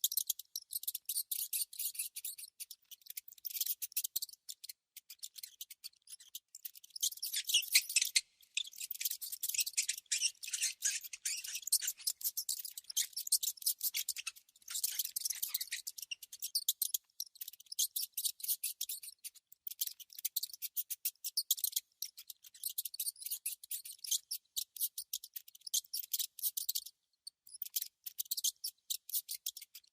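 Mouse squeaking and chittering: rapid runs of very high-pitched chirps and clicks, broken by short pauses.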